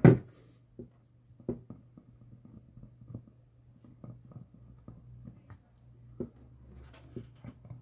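Handling noises from work at a bench: a sharp knock at the start, then scattered light clicks and taps over a faint steady low hum.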